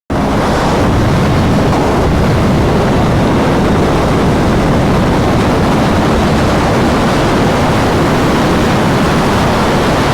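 Steady rush of wind and road noise from a sportbike ridden at speed, heard through a helmet-mounted microphone, with no engine note standing out.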